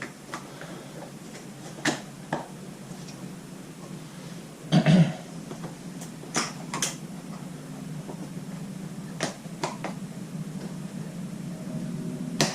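Scattered light clicks and knocks of shelving parts being handled during assembly, with a louder brief clatter about five seconds in, over a steady low hum.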